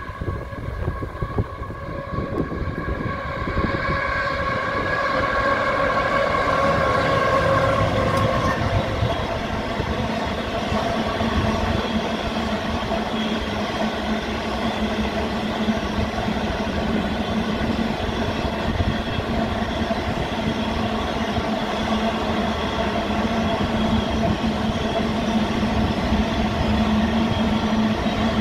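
Diesel-hauled freight train passing: the lead locomotives' engines sound steady tones for the first nine seconds or so, fading as they go by, then the line of grain hopper wagons rolls past in a continuous rumble of wheels on rail.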